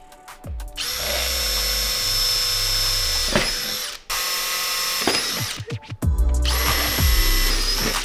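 Power drill running in two bursts of about two and a half seconds each, a steady high whine that winds down in pitch as the trigger is released.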